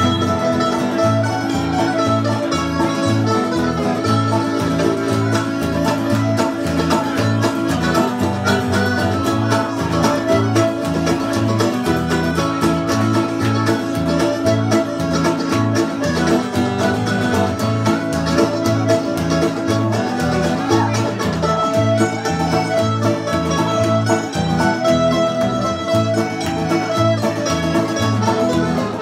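Live acoustic band playing an up-tempo tune: strummed acoustic guitar and a second strummed string instrument over an accordion, keeping a steady rhythm.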